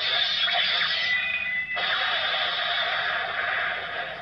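Electronic sound effects and music playing from a Bandai DX Kamen Rider Blades toy. One sound stops abruptly about a second and a half in, and another starts straight after.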